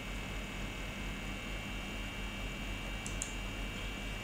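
Steady electrical mains hum with a constant background hiss, and two faint short ticks about three seconds in.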